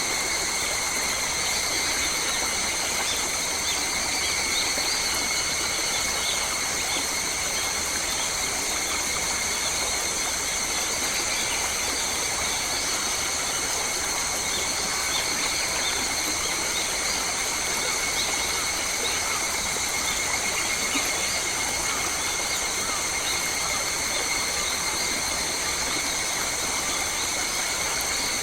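Forest ambience: a steady, high-pitched insect drone in several unchanging bands, with faint bird chirps scattered through it.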